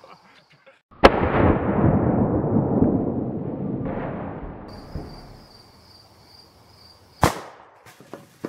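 Two shotgun shots. The first comes about a second in and is followed by a long low rumble of echo that fades over a few seconds. The second, near the end, is a short sharp crack.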